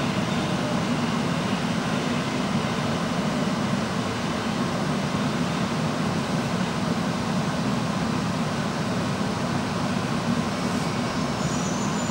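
Interior running noise of a Tokyo Metro 1000 series subway car with Toshiba PMSM traction motors, slowing as it runs into a station: a steady low rumble of wheels on rail and car noise, with faint high-pitched tones near the end.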